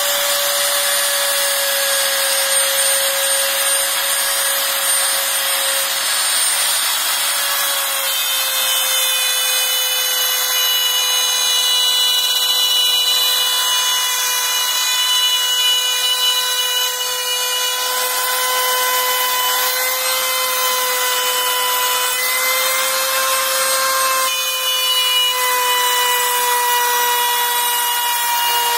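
Makita 3709 530-watt trim router running at speed, its bit cutting a circular groove through a thin sheet on a circle-cutting guide: a steady high whine with cutting noise, its pitch sagging slightly under load during the first several seconds and then holding.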